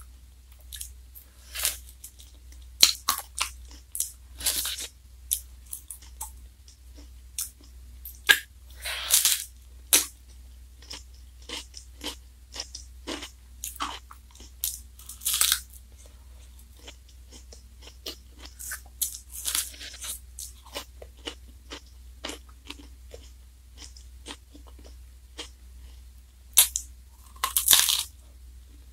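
Close-up biting and chewing of a Glico Wings J.Cone Black & Pink ice cream, its black wafer cone crunching in irregular bites, with a few longer crunching stretches.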